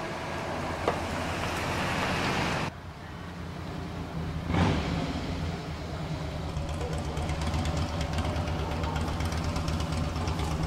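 Outdoor ambience with a steady low rumble, like traffic or an engine. A broad hiss stops abruptly about two and a half seconds in, and a brief thump comes about four and a half seconds in.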